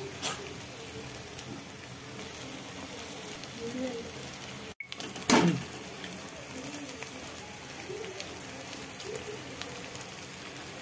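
Vegetables and egg sizzling in hot oil in a wok, a steady crackling hiss. There is one sharp knock about five seconds in.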